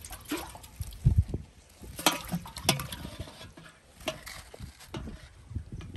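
Irregular knocks, clicks and scrapes from an aluminium cooking pot being handled on a muddy bank, with a couple of dull thumps about a second in.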